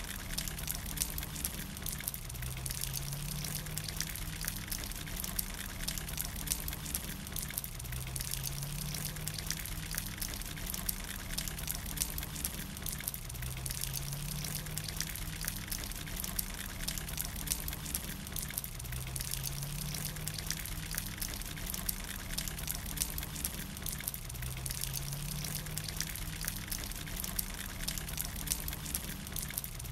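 Steady rain falling, a dense fine crackle of drops hitting the wet brick and leaves. Under it a faint low hum rises in pitch for about a second, once every five or six seconds.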